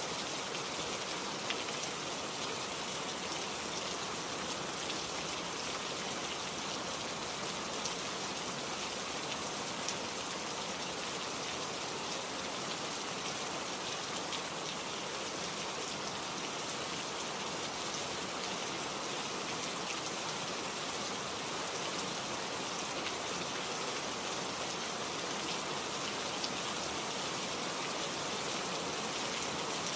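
Steady rain falling, an even hiss of rain with scattered drop ticks.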